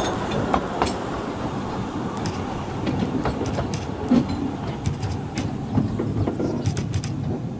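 15-inch narrow-gauge passenger train running along the line, heard from on board: a steady rumble of the carriages with irregular sharp clicks from the wheels on the track.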